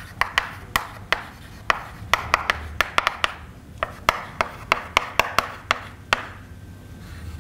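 Chalk writing on a chalkboard: a run of sharp, irregular taps, about three a second, with soft scratching strokes between them.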